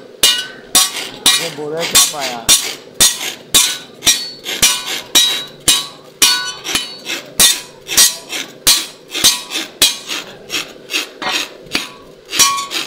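Hand hammer beating a chaff-cutter (toka) blade on a small anvil: steady blows about two to three a second, each with a short metallic ring. This is the blade being re-forged, the work a chaff-cutter blade needs every month or so to keep cutting.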